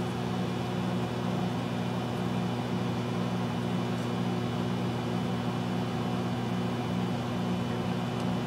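Microwave oven running, a steady electrical hum with fan noise.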